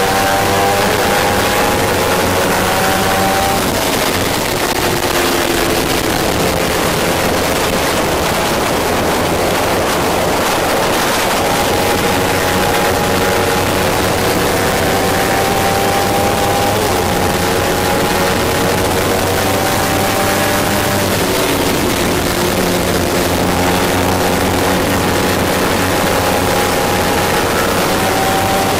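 Kawasaki Ninja 300 race bike's parallel-twin engine running hard, heard onboard over wind rush. The revs fall a few seconds in and again about two-thirds through, then climb back up.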